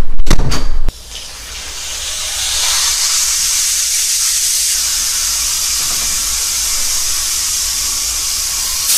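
Steady high hiss of carbon dioxide from dry ice escaping through the loosely closed cap of a five-litre plastic water bottle, building up over the first couple of seconds and then holding steady. It opens with about a second of loud rumbling and knocks that cuts off abruptly.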